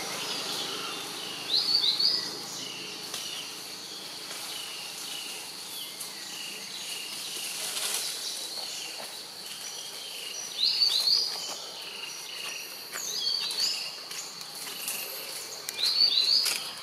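Forest birdsong over a steady high insect hiss: several loud pairs of quick rising chirps, one near the start, two around the middle and one near the end, with a run of short high notes repeating about twice a second in the first half.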